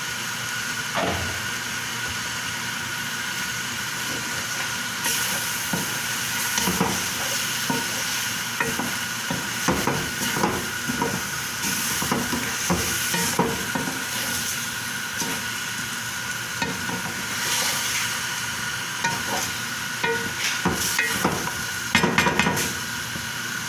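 Chicken frying with a steady sizzle in a pot while it is stirred, with repeated scrapes and knocks of a spoon against the pot, busiest in the middle and again near the end.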